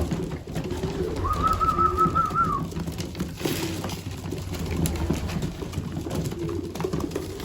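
Young racing pigeons cooing, several birds overlapping, inside a loft. A short warbling higher-pitched call stands out about a second in.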